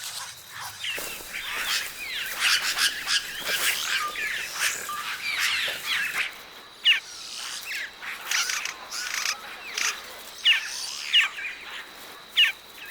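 A colony of oropendolas calling: a dense chatter of overlapping chirps and gliding whistles for the first half, then a few louder, sharp calls spaced a second or so apart.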